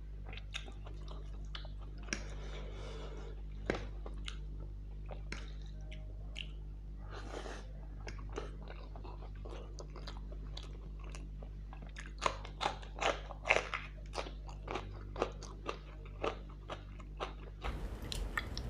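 Close-miked chewing and biting of crunchy food in an eating ASMR recording: soft scattered mouth clicks and smacks at first, then a quick run of louder crisp crunches about twelve seconds in.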